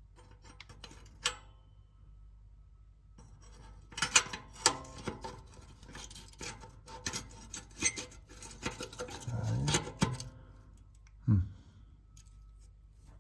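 Clicking, knocking and rattling of a plastic clip and metal bracket being worked by hand onto a BMW exhaust flap actuator: a few sharp clicks at first, then a dense run of clatter from about four to ten seconds in. A short low sound follows about a second later.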